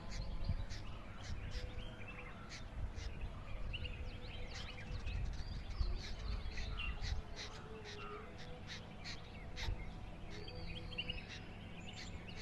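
Several birds chirping and calling repeatedly in a morning chorus, over a steady low rumble.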